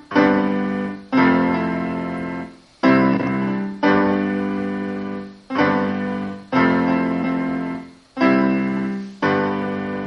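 Solo piano playing slow sustained chords, struck in pairs about a second apart with a longer fading chord before each new pair, about eight chords in all.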